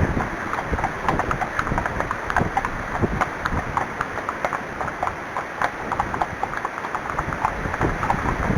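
Horse hooves clopping in quick, irregular strikes as the horse is ridden, with wind buffeting the microphone.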